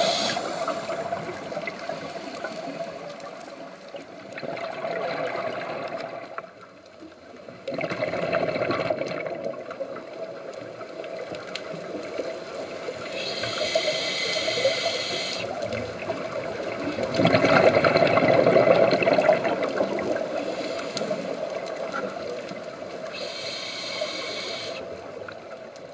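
A scuba diver breathing through a regulator underwater: a high hiss on each inhale and a rush of exhaled bubbles, the loudest bubble rush about two-thirds of the way in.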